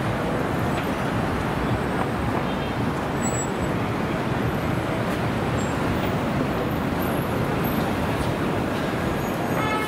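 Steady city street traffic: a constant low rumble of motor vehicles passing on the road.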